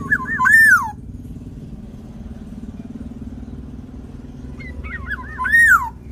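Black-naped oriole singing two whistled phrases, one at the start and one about five seconds in, each a few quick wavy notes ending in a longer note that rises and falls. A steady low motor hum runs underneath.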